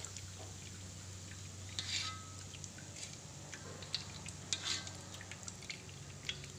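Hot frying oil dripping and crackling in short, irregular pops as freshly fried shallots drain on a perforated metal strainer over the wok, over a steady low hum.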